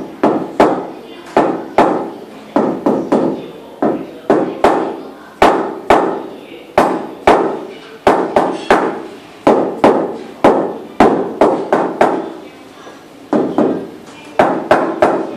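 Mallet tapping a 60 x 60 cm polished floor tile down to bed it into the adhesive: a run of sharp knocks, about two a second, each with a short ring, with a brief pause near the end.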